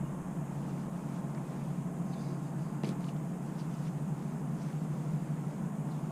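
Steady low outdoor background rumble, with one short click about three seconds in.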